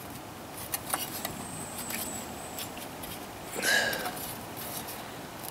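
Galvanized sheet-metal parts being handled and pressed together by hand, giving light metallic clicks and taps, with a brief louder scrape about three and a half seconds in.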